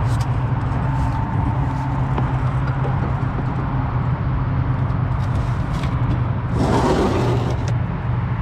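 Pickup truck running with a steady low engine drone, and a brief rush of noise about seven seconds in.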